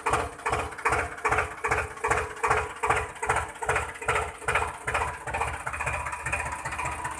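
Tractor diesel engine sound chugging at a slow, even rhythm of about two and a half beats a second. The beats blur into a steadier run near the end.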